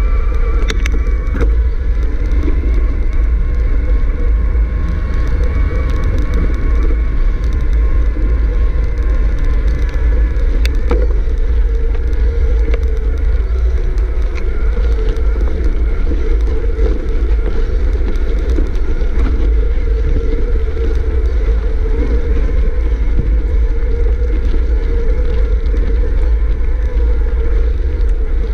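Mountain bike rolling over a dirt trail, with heavy wind rumble on the on-bike camera's microphone and steady tyre noise, plus a few knocks from bumps.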